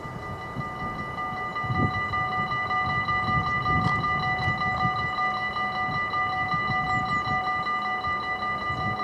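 Dutch level-crossing warning bells ringing steadily as the crossing activates, the signal that a train is approaching. Wind rumbles on the microphone underneath.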